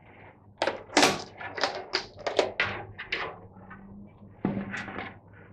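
Sheet-metal heater element cover of a tumble dryer clattering as it is pulled off the back panel and laid down on a wooden workbench: a quick run of sharp metallic knocks, then one more knock about four and a half seconds in.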